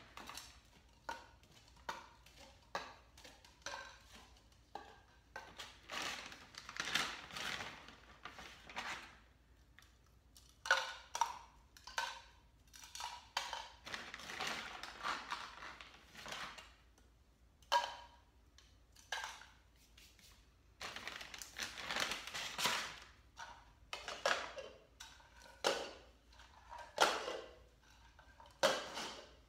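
Disposable plastic cups clicking and tapping on a tile floor as they are handled and set down upside down, with a paper treat bag rustling in several longer bursts.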